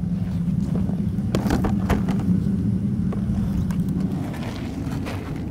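Steady low drone, like a motor or burner running, with a few faint knocks over it; the drone thins out about four seconds in.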